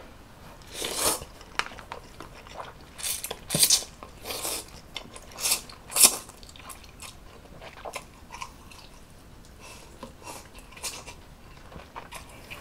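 Close-miked noodle eating: a series of loud, hissy slurps as instant ramen noodles are sucked up, the loudest about six seconds in, followed by quieter chewing and small mouth smacks.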